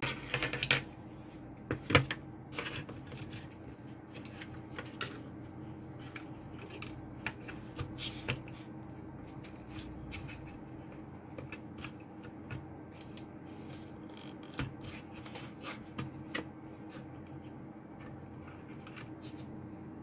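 Small clicks, taps and knocks of hands handling a Crucial 2.5-inch SSD and its flat ribbon cable in an opened laptop's drive bay, the loudest knock about two seconds in, over a steady faint hum.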